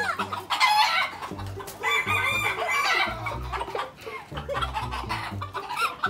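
Rooster crowing, one drawn-out call about two seconds in, among other chicken calls.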